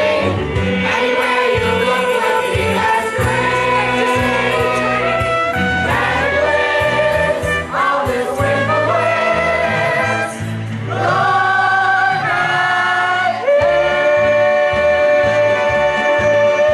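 Stage cast singing a musical-theatre number in chorus with instrumental accompaniment, settling on a long held note for the last few seconds.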